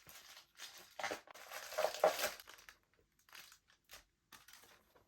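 Packaging crinkling and rustling as it is handled, loudest about one and two seconds in, then a few softer rustles.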